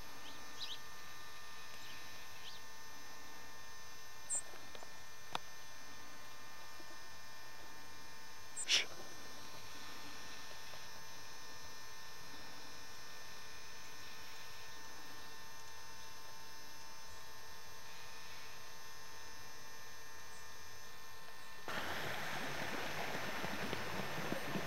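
A faint steady electrical hum, broken by a few brief high chirps, the loudest about nine seconds in, and a single click. A rustling noise sets in suddenly a few seconds before the end.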